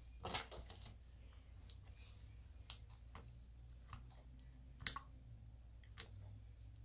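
Slime being kneaded and squished by hand, giving a cluster of small clicks and pops near the start and a few sharper single pops later.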